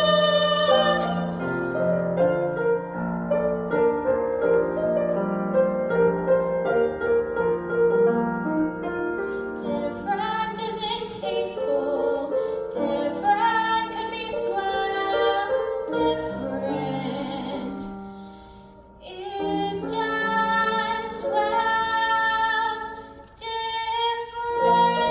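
A girl singing a solo song into a handheld microphone, amplified, over instrumental accompaniment. The music thins out briefly about 18 seconds in and again near the end.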